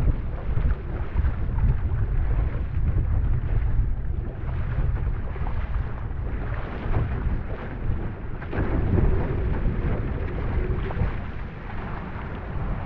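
Wind buffeting the microphone in a low rumble, over water rushing and splashing along a one-person outrigger canoe's hull and paddle as it runs downwind through chop. The rush of water swells about two-thirds of the way in.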